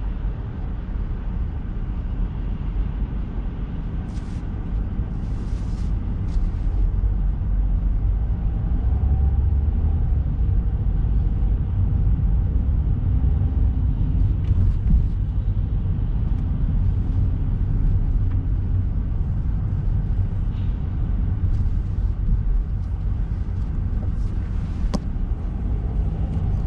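Low, steady rumble of a car driving in slow city traffic, louder from about eight seconds in as it picks up speed. A few faint clicks, and one sharper click near the end.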